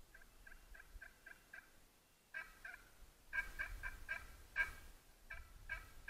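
Turkey yelping: runs of short, evenly spaced notes, about five a second, growing louder from about three seconds in, with a low rumble underneath.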